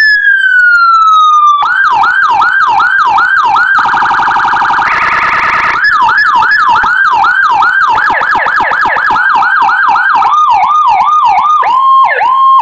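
CJB 200 W electronic siren module through a TOA horn speaker, sounding Whelen HHS 3200-style tones. A wail winds down in pitch, then switches to a yelp of rapid rising-and-falling sweeps. About four seconds in it breaks into a short fast warble, then goes back to yelp sweeps that get faster toward the end.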